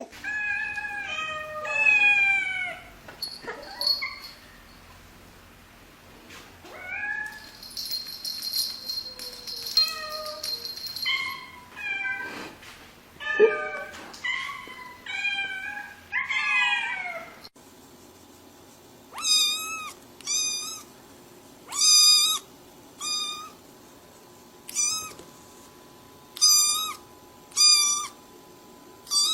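Cats and kittens meowing, one call after another, many of the calls falling in pitch. In the second half comes a series of short, high-pitched mews spaced about a second apart.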